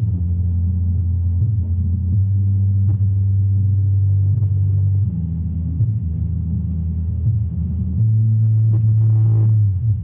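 Loud, deep bass notes from a sound-check track played through 12-inch woofers in bass cabinets. Each low note is held for a few seconds, the pitch changes about five and eight seconds in, and it cuts off suddenly near the end.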